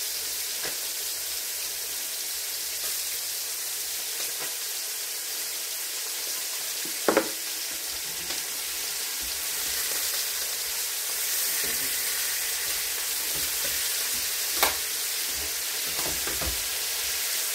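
Pork chops sizzling in frying pans, a steady hiss as they brown. A few sharp knocks of a utensil or shaker against the pans, the loudest about seven seconds in and another about fifteen seconds in.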